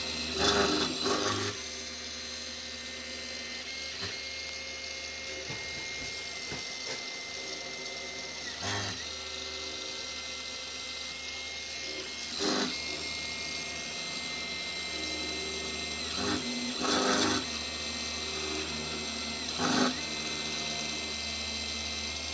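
Small CNC milling machine cutting a spoked wheel into a clamped workpiece: a steady whine and hum from the spindle and drives, with about six louder noisy bursts of a second or less as the cutter moves and bites.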